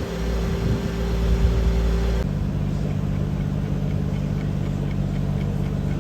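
Car engine idling steadily; about two seconds in the sound changes abruptly to a different steady idle note.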